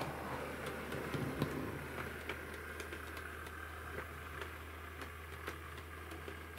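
Hornby OO-gauge 2-HAL model electric multiple unit running along the track and moving away. Its wheels click over the rail joints over a steady low hum, and the sound grows gradually quieter.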